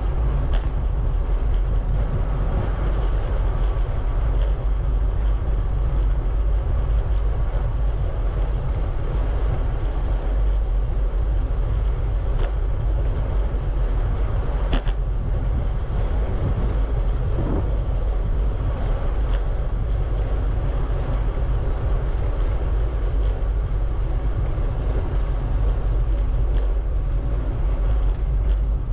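Steady wind rumble on the microphone of a camera riding on a moving bicycle, with a few sharp clicks scattered at irregular intervals.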